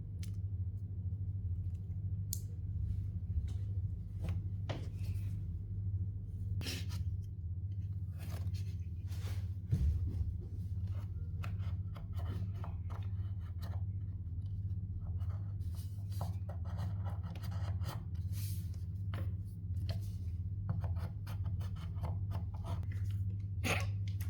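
Hands handling Kinder Joy egg packaging: plastic and foil crinkling, with irregular clicks and scrapes and one sharper knock about ten seconds in, over a steady low hum.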